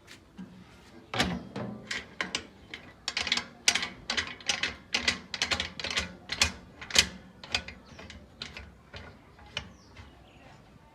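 A quick, irregular run of sharp metallic clicks and taps, a few a second for several seconds, from hand tools working on the metal parts of a feed grinder during its assembly.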